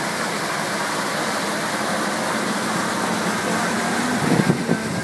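Foam-concrete mixing plant running: a steady rushing machine noise, with a faint hum joining about halfway and a few brief louder knocks near the end.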